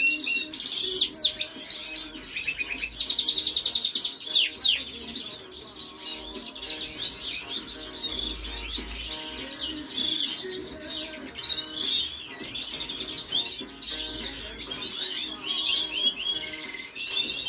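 Caged canary singing: bright chirps and quick whistled notes, with a fast rolling trill about two to three seconds in. The song is loudest in the first five seconds, then goes on more softly.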